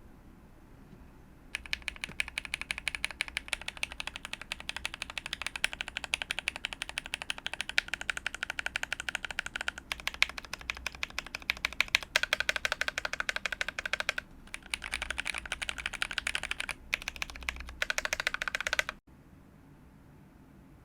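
Fast, continuous typing on a mechanical keyboard fitted with SP-Star Magic Girl tactile switches, an FR4 plate and GMK keycaps, in a sound test. The keystrokes sound clacky with a bit of thock. The typing breaks off briefly a few times and stops just before the end.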